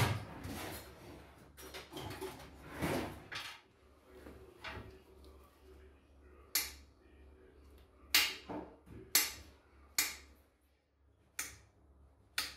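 Household objects being handled: a few seconds of scraping and rustling, then a run of about seven sharp clicks and knocks spread through the rest.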